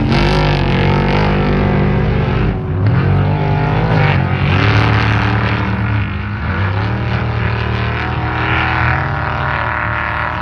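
Off-road race trucks' engines revving hard, loud, their pitch rising and falling as the throttle is worked, with drops in revs about two and a half and six and a half seconds in.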